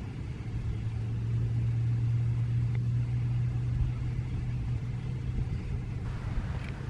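Federal Signal Thunderbolt 1003A siren winding down at low speed, its tone sunk to a steady low drone with a rumble beneath, dropping slightly lower near the end.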